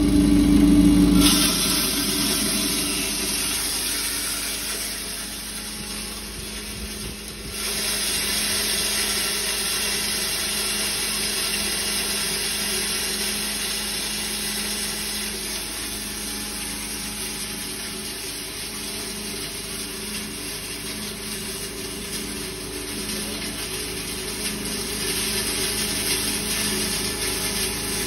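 Electric belt-driven maize grinder running and grinding corn kernels into meal. A steady motor hum sits under a dense, gritty rush of grain being milled. The rush sets in sharply about a second in, thins briefly around six seconds, then picks up again and holds steady.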